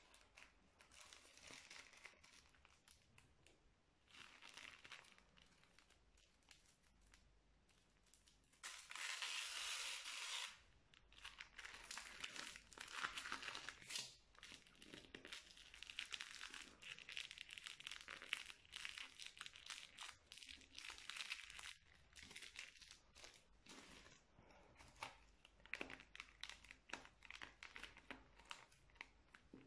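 Faint crinkling and crackling of plastic piping bags being handled and squeezed to pipe slime onto foam beads, in irregular bursts of small crackles. About a third of the way in there is a denser, steady rustle for about two seconds.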